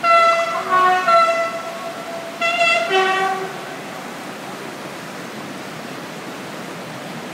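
Two loud horn blasts, each moving between a few tones, the first about two seconds long and the second about one second, over the steady rush of a river in flood.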